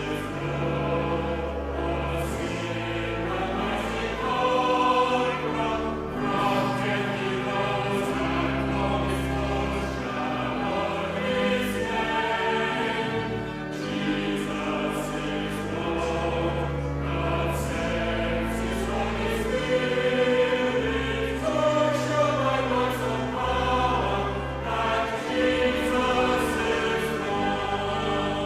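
A hymn sung by a group of voices over long held bass notes that change every second or two.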